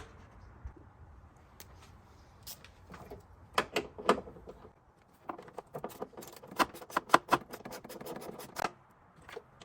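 Hand tools and small metal parts clicking and clinking while parts are taken off a car engine. There are scattered sharp clicks, a couple of louder knocks about halfway through, then a quick irregular run of clicks before they stop near the end.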